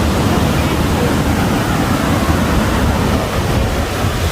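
Steady rushing of sea surf mixed with wind buffeting the microphone, the wind giving a heavy, uneven low rumble.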